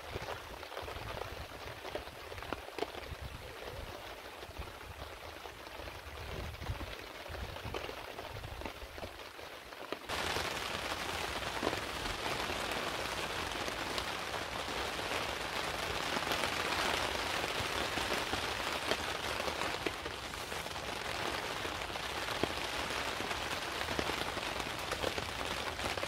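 Heavy rain falling steadily on a tarp shelter. About ten seconds in the rain sound suddenly becomes louder and brighter, and stays that way.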